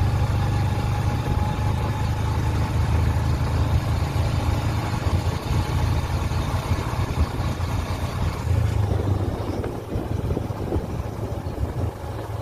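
Wind rumbling on the microphone over the steady hum of a motorcycle engine while riding at speed. The sound eases a little about three-quarters of the way through.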